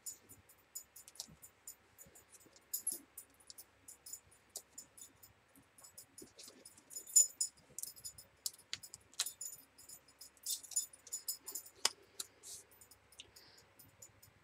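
Faint, irregular crinkles and sharp little clicks of cardstock and adhesive backing being handled as foam adhesive dimensionals are peeled off and pressed onto the back of small cut card pieces. A few ticks stand out louder, around the middle and about three-quarters of the way in.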